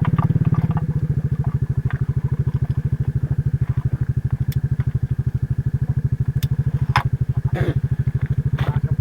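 A vehicle engine idling with a steady, even low pulse, about a dozen beats a second, with a few sharp knocks and clanks over it, loudest around seven seconds in.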